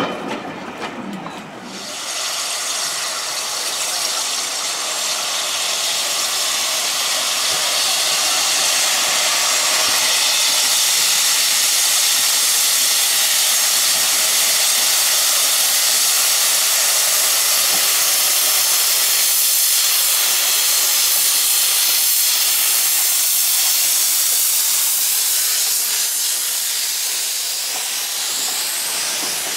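Steam locomotive letting off steam: a loud, steady hiss that starts suddenly about two seconds in and carries on without a break.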